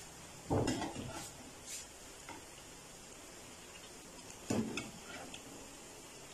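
Beef kababs shallow-frying in oil with a steady sizzle, and a spatula knocking and scraping against the frying pan twice, about half a second in and again about four and a half seconds in, each followed by a few lighter clicks.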